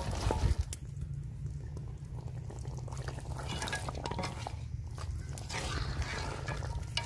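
Beef karahi in yogurt gravy simmering in a large metal pot while a ladle stirs it: wet bubbling and stirring, with a few clinks of the ladle against the pot at the start and again near the end.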